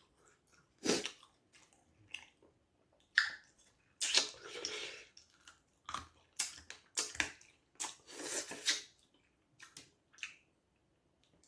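Irregular kitchen handling sounds: sharp clicks and knocks with brief swishes of water, as when something is being washed or cleaned by hand in a bowl or sink.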